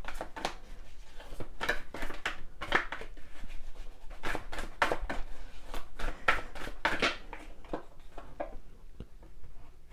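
A deck of cards being shuffled by hand: a quick, irregular run of papery flicks and slaps that thins out in the last couple of seconds.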